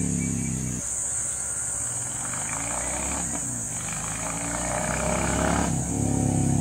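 Royal Enfield Classic 350 Reborn's single-cylinder engine with a short-bottle silencer, running as the motorcycle rides on the road. Its exhaust note drops away about a second in, stays lower and rougher, then comes back louder near the end as the bike draws near.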